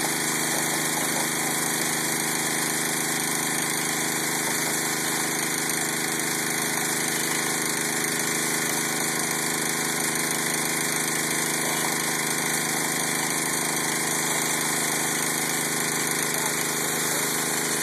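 Small engine running steadily at a constant speed, with no revving or change in pitch.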